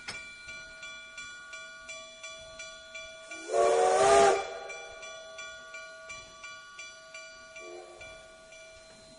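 Blacksmith's hammer striking an anvil about twice a second, each blow ringing on, the strikes slowly fading. A steam whistle blows loudly for about a second a little over three seconds in, and gives a shorter, fainter toot near the end.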